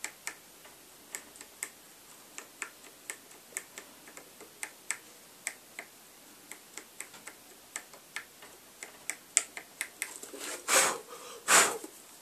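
HB pencil lead tapping and scraping on a Casio keyboard's circuit-board contact pads, light sharp ticks at an uneven rate of about two a second, as graphite is laid on faded contact lines to bring dead keys back. Near the end come two louder rustling handling noises.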